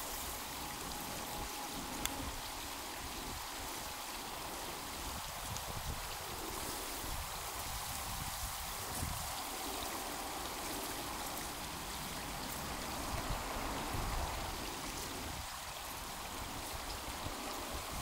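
Steady rush of water running through a beaver dam, with a low, uneven rumble underneath.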